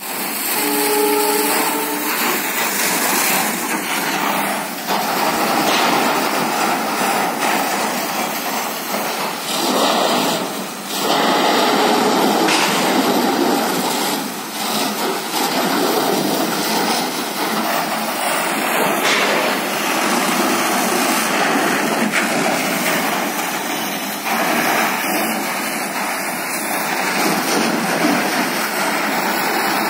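Firefighting hose jet spraying water onto a burning warehouse roof: a loud, steady rushing hiss.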